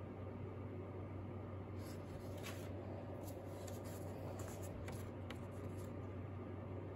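Sheets of drawing paper rustling and sliding against each other as a stack of sketches is leafed through by hand: a run of short scrapes from about two seconds in until about six seconds in, over a steady low hum.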